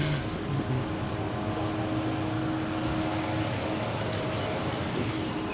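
Steady hum and road noise inside a moving car, with a faint constant drone.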